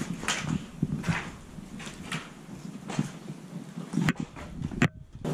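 Footsteps on a concrete floor strewn with rubble and plaster, about one step a second, each a short gritty scuff, with the audio dropping out briefly near the end.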